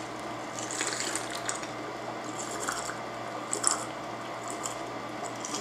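A person drinking from a glass: a few soft sips and swallows over a steady low room hum.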